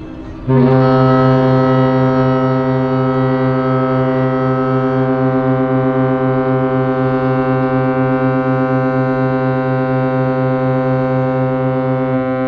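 Cruise ship's horn sounding one long, steady, deep blast of about twelve seconds. It starts abruptly about half a second in and stops near the end.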